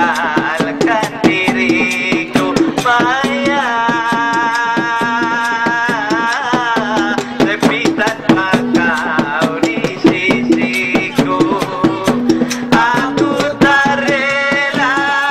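Live Mandailing gondang music: drums and percussion beat a steady repeating pattern with rattling strikes, under a male singer's ornamented melody with long held, wavering notes.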